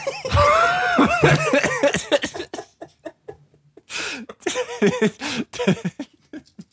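Two men laughing hard: a loud outburst of laughter that fades after about two seconds, then a second fit of shorter, breathy laughs about four seconds in.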